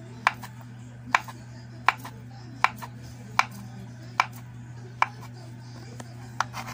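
Kitchen knife slicing ripe bananas on a plastic cutting board: a sharp tap each time the blade meets the board, about every three-quarters of a second.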